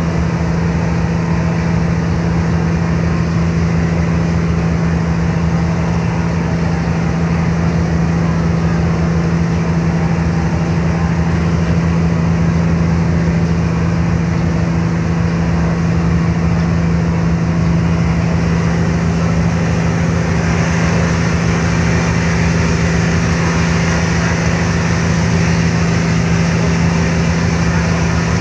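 Car ferry's diesel engines running steadily with a strong, even low hum, under a rush of wind and water. The rushing grows louder about two-thirds of the way through.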